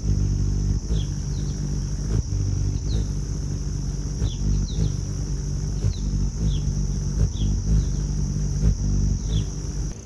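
Ruby-throated hummingbird's wings humming as it hovers: a steady low buzz like a bee. Short high chirps come now and then over it, about ten in all.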